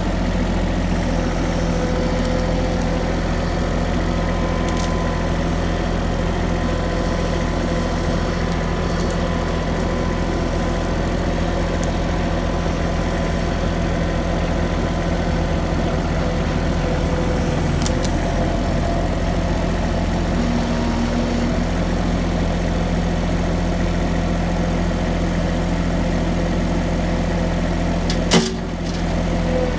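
A vehicle engine idling steadily, with a single sharp knock about a second before the end.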